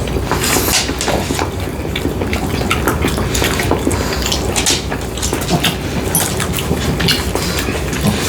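Cutlery clinking and scraping against dishes while eating, a string of irregular short clicks and taps.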